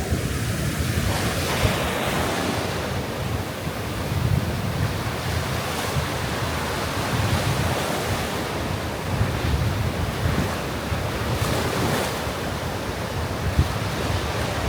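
Sea waves breaking and washing on a sand beach, with strong wind buffeting the microphone in uneven gusts.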